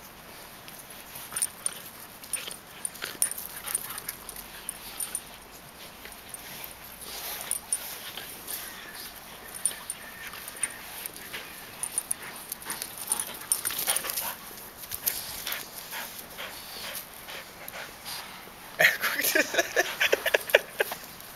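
A boxer puppy and a Belgian Tervuren play-fighting, with scuffling and short whining and yipping calls. The calls come loudest in a quick run of several about nineteen seconds in.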